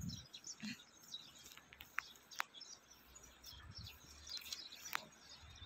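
Faint outdoor ambience with small birds chirping here and there, including a few short, sharp chirps about two seconds in and again about five seconds in.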